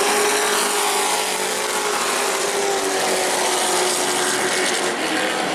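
Several short-track racing trucks running together at speed: a dense, steady engine blare with one engine note drifting slowly down in pitch.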